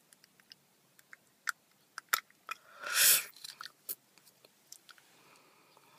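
Clear plastic aligner tray being pried off the upper teeth with the fingers: scattered small wet clicks, with a brief louder hiss about three seconds in.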